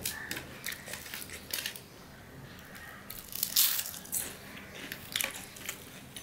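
Close eating sounds of a crisp fried pumpkin-flower fritter (kumro fuler pakura) being bitten and crunched, with wet clicks of chewing and mixing rice by hand. The loudest crunch comes a little past the middle.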